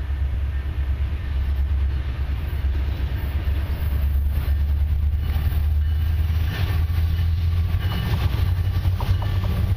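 Approaching CN freight train's diesel locomotives: a steady low engine rumble that grows slightly louder as they come closer.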